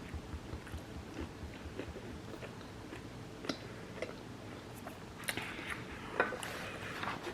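A person chewing a mouthful of pasta, with soft mouth clicks and a few sharper ticks scattered through.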